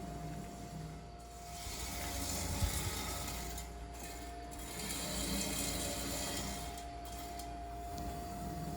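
CNC plasma cutting system running: a steady low hum with a constant mid-pitched whine over a hiss that slowly swells and eases.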